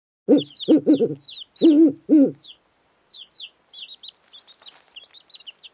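Chickens clucking in a quick run of short calls for about two seconds. Then high, quieter chirps of small birds follow and keep going.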